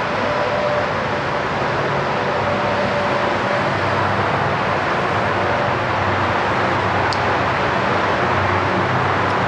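Steady road and engine noise of a car driving, an even rush with a faint low hum beneath.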